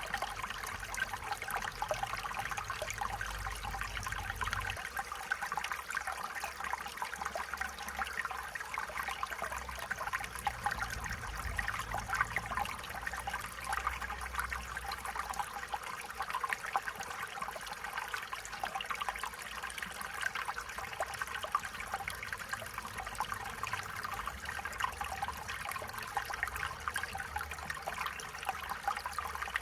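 A small stream running and trickling steadily, a continuous bubbling babble of water over stones.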